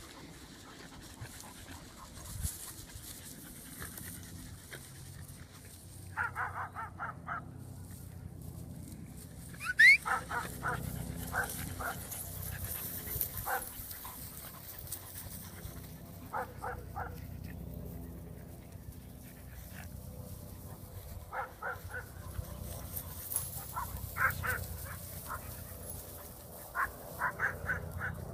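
Dog barking in clusters of short, quick yaps, several times over. A loud rising whistle sounds about ten seconds in.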